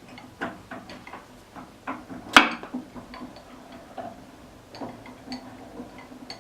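Metal tools and lathe parts clinking and knocking as they are handled, in irregular taps, with one loud metallic clank about two and a half seconds in.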